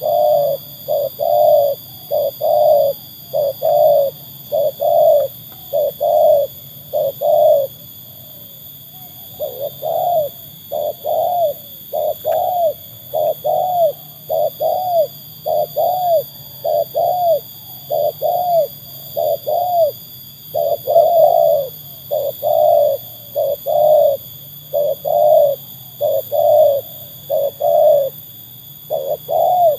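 Spotted dove (tekukur) cooing: a long series of short, evenly repeated coo notes, with a brief pause about eight seconds in.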